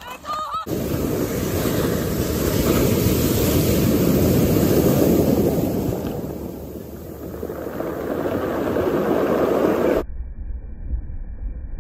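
Surf breaking and washing up a pebble beach: a steady rush that swells, eases off and builds again. Near the end it cuts off suddenly to a low wind rumble on the microphone.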